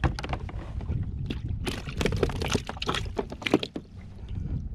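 Water splashing and sloshing around a kayak, with a flurry of quick sharp splashes in the middle, over a steady low rumble.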